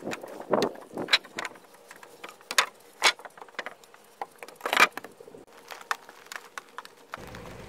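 Footsteps on wooden deck stairs, with knocks and clunks from a deck board being carried, an irregular series of sharp taps and thumps.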